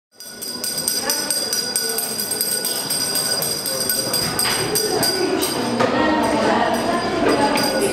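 Background music that fades in quickly out of silence and then plays at a steady level, with many quick clicking strokes.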